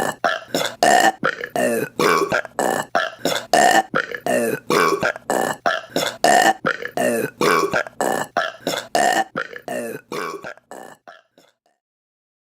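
A rapid string of short belches from women, about three a second, evenly spaced like an edited loop. It fades out near the end.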